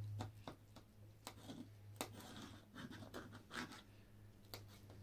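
Pizza cutter scraping and crunching through a crisp pizza crust and clicking against an enamel tray in short, irregular strokes. A steady low hum sits underneath.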